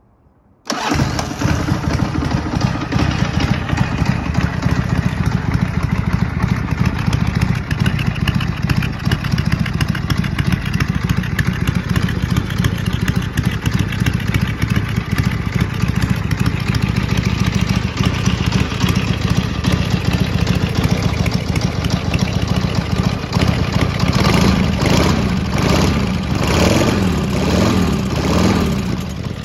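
1983 Harley-Davidson XLX1000 Ironhead Sportster's air-cooled V-twin starting about a second in and then idling steadily. Near the end the throttle is blipped several times, the revs rising and falling.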